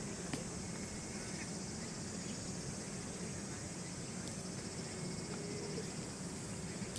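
Steady, high-pitched chorus of summer insects droning from the surrounding trees, with a few faint knocks.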